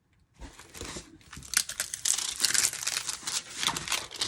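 Crinkling and rustling of a diamond-painting canvas and its protective cover being handled. It starts about half a second in and gets louder after about a second and a half.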